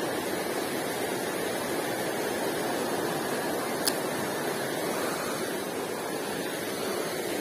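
Steady rush of a shallow, fast river running over small rapids, with one sharp click a little past the middle.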